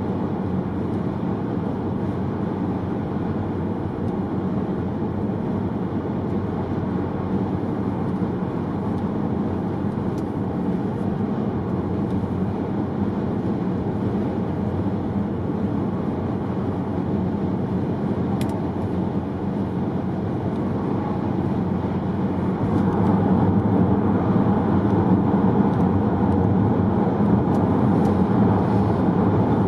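Steady road and tyre noise with engine hum inside a car cabin at motorway speed, getting louder about three-quarters of the way through.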